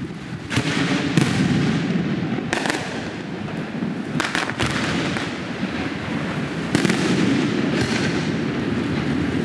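Aerial fireworks display: shells bursting with booms over a continuous crackle. There are sharp bangs about half a second in and again a couple of seconds later, a quick cluster of several bangs around the middle, and the loudest bang a little after that.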